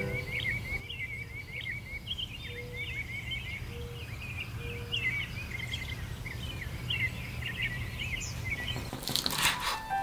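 Small songbirds chirping and twittering in quick high-pitched runs over a steady low background hum. Near the end, a quick run of crisp strokes from a knife chopping mint leaves on a wooden cutting board.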